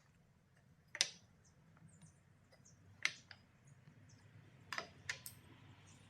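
A handful of sharp, light clicks and knocks, six or so spaced irregularly, the loudest about a second in and at three seconds, over a faint low hum.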